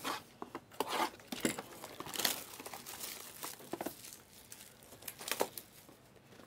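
Plastic shrink-wrap on sealed trading-card hobby boxes being slit with a box cutter and pulled away: irregular crinkling and tearing rustles.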